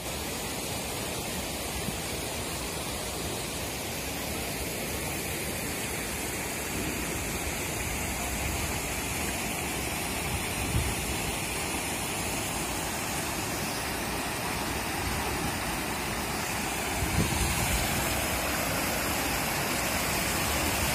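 Steady rush of a stream of water cascading over sandstone rocks at a small waterfall.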